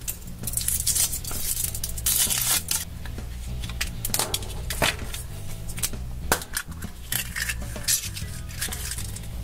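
Foil wrapper crinkling as it is peeled off a Kinder Surprise chocolate egg, then the chocolate shell cracking and the yellow plastic toy capsule clicking open, with many short crackles and clicks over quiet background music.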